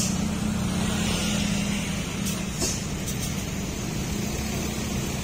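Heavy diesel truck engines running at low revs, with a steady drone that eases off about two seconds in. A few short hisses come around the middle.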